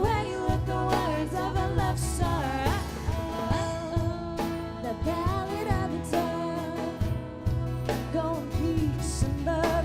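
Music with singing voices over an instrumental accompaniment with a heavy, recurring bass line.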